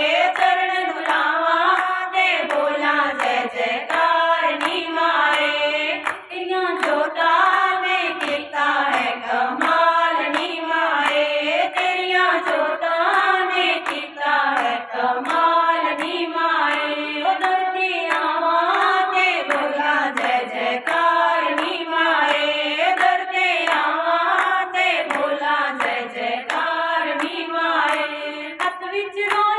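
A group of women singing a devotional bhajan together, clapping their hands in a steady beat.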